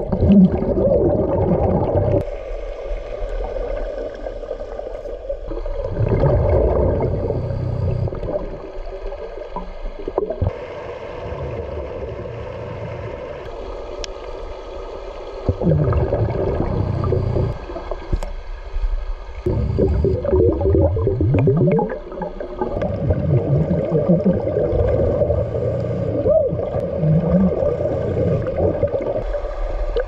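Underwater breathing through a BLU3 hookah dive regulator: bursts of exhaled bubbles gurgling every few seconds, with quieter stretches between breaths, over a steady hum.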